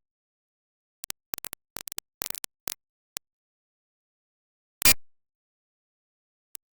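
Dead silence broken by quick clusters of short sharp clicks early on, then a single loud, brief bang or thump past the middle, and one faint click near the end.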